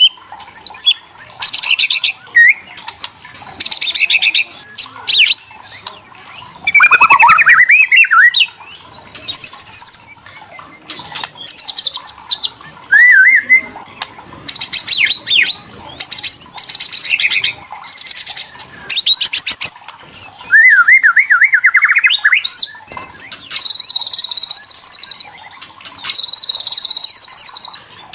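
White-rumped shama giving its kretekan: bursts of rapid, dry rattling calls, each a second or two long, broken by short whistled notes that swoop up and down. This is the agitated rattle that keepers play to provoke a caged shama, young or adult, into answering.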